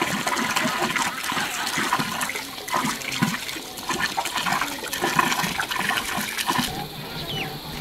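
Water running and splashing, stopping shortly before the end.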